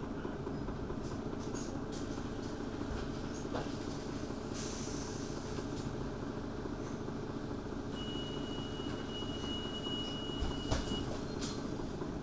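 Mercedes-Benz Citaro city bus idling at a stop with a steady low engine rumble. A steady high tone sounds for about three seconds in the second half, and a short thump comes near the end.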